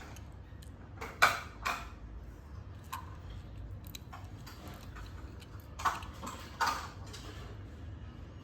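Small hard clicks and clacks of die-cast toy vehicles being handled, with a louder pair of clacks just over a second in and another pair about six seconds in.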